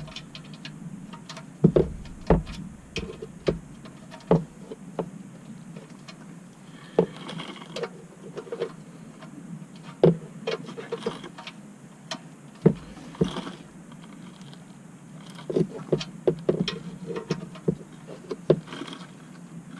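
Wrench tightening a new oil drain plug, with its washer, into the oil pan: scattered metallic clicks and knocks that come in irregular clusters, some louder single knocks among them.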